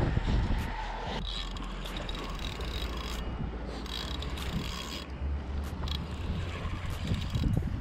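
Spinning fishing reel handled and cranked close to the microphone, a mechanical clicking and whirring that comes in short stretches, over a steady low rumble.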